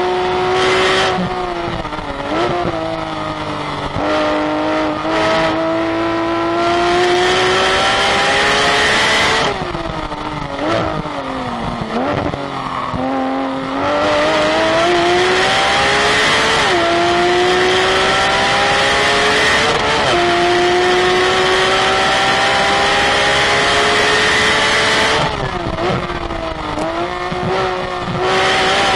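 Racing car engine lapping a track, revs climbing hard in gear with two quick upshifts where the pitch drops suddenly. Two quieter stretches where the engine comes off the throttle and the revs fall away, one about ten seconds in and one near the end, over a steady rush of wind and tyre noise.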